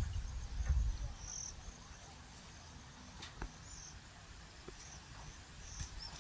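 Insects chirping faintly in short, high, separate chirps that recur every second or so. A low rumble fades out in the first second.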